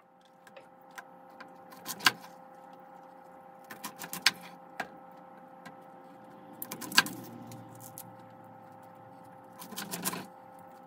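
Chef's knife cutting Brussels sprouts on a wooden cutting board, with sprouts set into a metal roasting tray: a handful of sharp knocks and clicks, the loudest about two, four and seven seconds in, and a short run of cutting near the end. A steady hum runs underneath.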